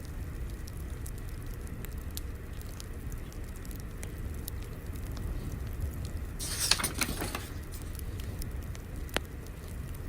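Fire crackling: a steady low rumble with scattered small pops and snaps, and a denser, louder run of crackle lasting about a second partway through.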